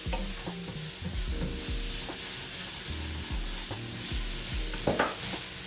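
Onions and bell peppers sizzling in oil in a pan while being stirred. The utensil scrapes and knocks against the pan several times, most sharply near the end.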